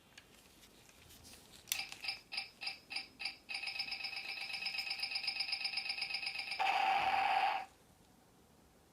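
Electronic sound effect from a battery-powered toy gun. It gives a few single pitched electronic shots about three a second, then a rapid machine-gun-like pulsing for about three seconds, then a louder steady electronic tone that cuts off suddenly.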